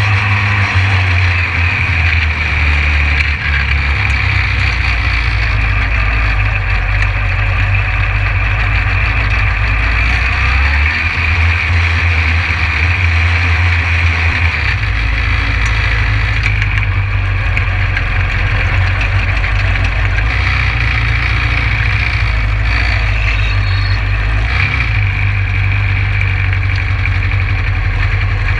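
SpeedSTR race car's four-cylinder engine heard from the cockpit, idling and pulling gently at low speed with a steady low rumble whose pitch shifts about halfway through.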